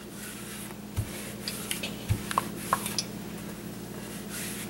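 Quiet handling of rolled-out raw dough on a floured marble pastry board: soft rubbing as the thin disc is lifted and turned, with two low thumps about a second apart, over a faint steady hum.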